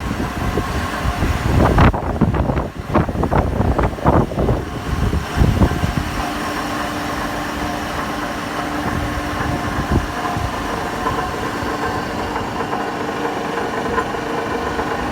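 Industrial gear reducer running with an abnormal noise: irregular heavy knocks for the first six seconds, then a steady hum with a held whine and a single knock about ten seconds in.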